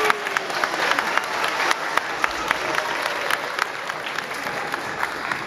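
Audience applauding, with sharp individual claps standing out over the crowd; the clapping thins out and grows quieter toward the end, with voices talking underneath.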